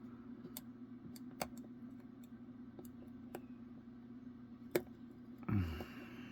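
Metal lock pick clicking and tapping against the pins of a pin-tumbler lock while it is being picked: light, irregular clicks, the sharpest a little before the fifth second. A steady low hum runs underneath, and a brief low voiced sound comes near the end.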